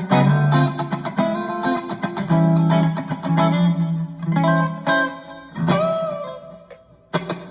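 Ibanez AZES40 electric guitar played through a Cuvave multi-effects unit: a run of picked notes and chords, then a note bent upward about six seconds in that rings out and fades before a few fresh strokes at the end.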